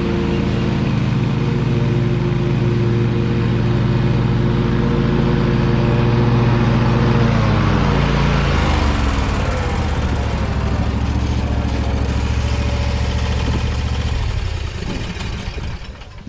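Exmark Stander stand-on mower's engine running steadily at high speed, then slowing with a falling pitch about halfway through, running lower, and dying away near the end as it is shut down.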